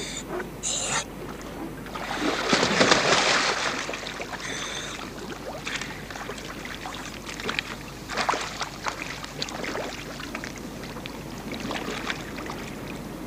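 Sea water splashing and sloshing as a scuba diver goes into the water beside a boat's ladder, with the biggest rush of splashing about two to four seconds in.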